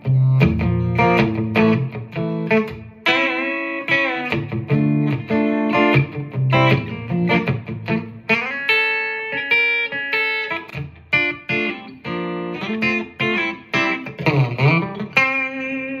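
Latitude Lark Telecaster-style solid-body electric guitar played through a Fender GTX100 amp: a run of picked chords and single-note lines, with a wavering bent note near the end.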